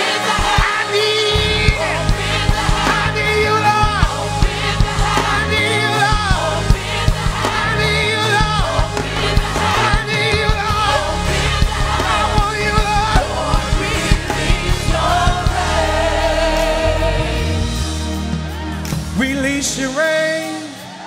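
Gospel worship song: singers with a choir over band accompaniment, with a stepping low line and a steady beat. Near the end the low accompaniment and beat drop out and the music falls quieter.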